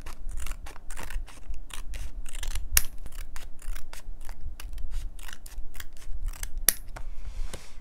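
Scissors cutting paper in a run of short snips, about two or three a second, trimming out a small printed text piece.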